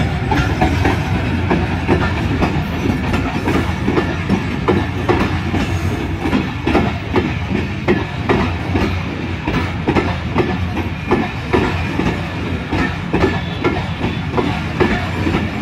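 Passenger coaches of a diesel-hauled intercity train rolling past, their wheels clattering rhythmically over rail joints above a steady low rumble.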